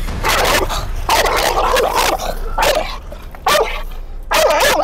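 American Staffordshire terrier barking loudly several times in quick succession, in aggressive reaction to a person coming too close.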